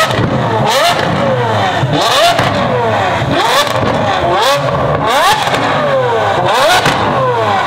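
A high-performance car engine revved hard in repeated quick blips, about once a second, its pitch climbing sharply and falling back each time. Several revs end in sharp cracks.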